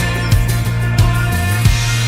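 Rock song playing in a short instrumental gap between sung lines: a steady drum beat over bass and guitars.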